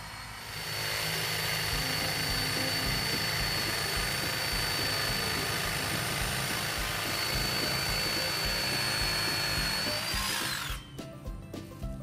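A power tool's motor running at a steady high whine, then released about ten seconds in, its pitch falling as it winds down and stops.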